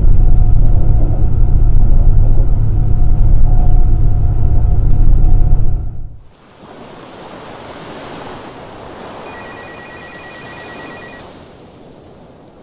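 A V6 car engine running with a loud, steady low rumble; about six seconds in it cuts off to a much quieter steady hiss.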